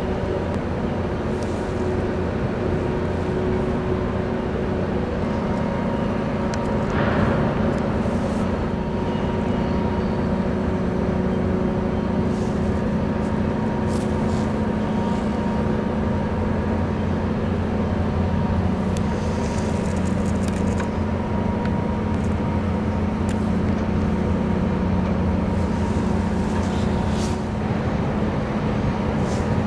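Steady low drone of a large ship's diesel engines and machinery, a deep rumble with several steady humming tones, and a short burst of noise about seven seconds in.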